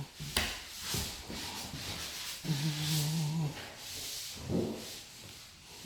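Drywall being sanded by hand, an abrasive pad rubbing over dried joint compound in repeated swishing strokes with a few light knocks, and a low hum for about a second midway.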